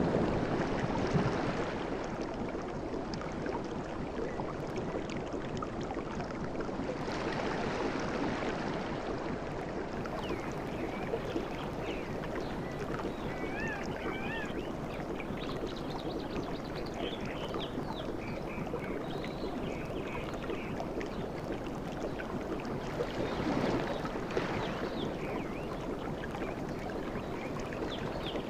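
Sea waves washing onto a beach: a steady rush of surf that swells up near the start, again about seven seconds in and again about twenty-three seconds in. A few faint high, wavering calls come through around the middle.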